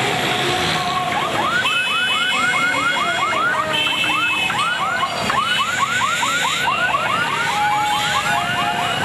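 An electronic siren-type horn gives quick rising yelps, about four a second, starting about a second in and running until near the end. Under it come steady horn honks and the din of a crowded street with motorbikes.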